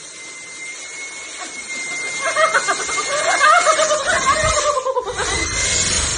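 Cordless stick vacuum running with a steady high whine and hiss as it sucks the air out of a plastic bin bag. From about two seconds in, a woman laughs and shrieks over it in gliding cries.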